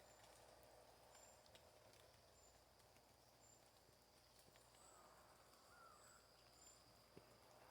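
Near silence: faint outdoor nature ambience with short, very high chirps repeating about once a second and a faint wavering call about two-thirds of the way through.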